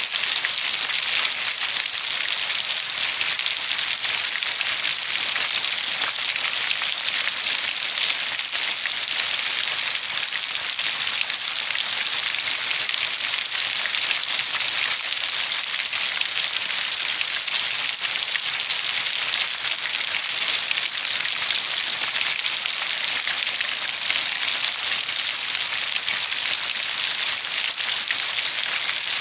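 Steady heavy rainfall: an even hiss of rain with dense small drop ticks, unchanging in level.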